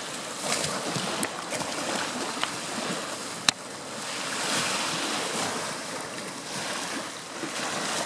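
Steady rushing background noise that swells and fades slowly, like wind or surf, with a few faint ticks and one sharp click about three and a half seconds in.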